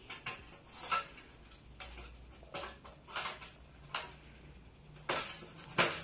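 Metal panels and pins of a folding camp stove clicking and clinking as its walls are unfolded and the pin holes lined up. A string of irregular light clicks and knocks, the sharpest about a second in.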